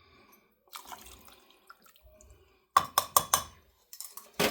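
Whisky poured from a bottle into a measuring cup: a thin splash of liquid from about a second in, then four loud glugs in quick succession about three seconds in, and one more sharp knock at the very end.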